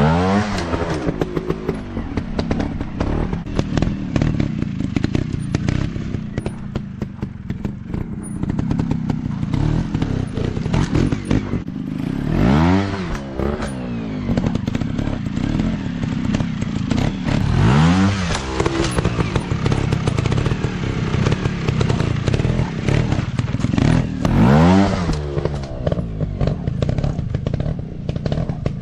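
Small trail motorbike engines running, with a rapid rattling exhaust beat; the engine pitch swells up and falls away four times as the bikes are throttled up and eased off.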